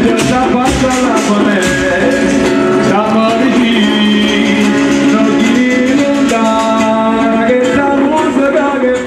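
Bottari folk music: a man singing into a microphone while the group beats on wooden barrels and vats. The strikes are dense for the first second or so, then the singing and accompaniment carry on.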